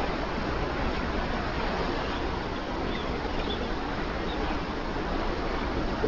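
Ocean waves: a steady rushing wash of surf.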